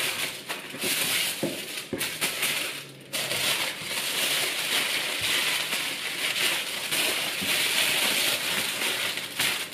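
Aluminium foil crinkling and crumpling as hands fold and press it tightly around a joint of meat, a steady crackly rustle with a brief lull about three seconds in.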